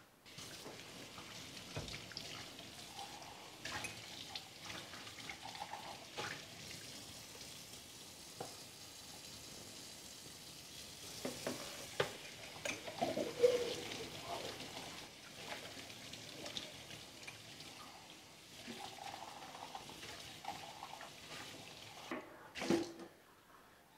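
Water running from a tap while a drinking glass is rinsed and scrubbed by hand, with a few knocks and clinks of the glass against the sink.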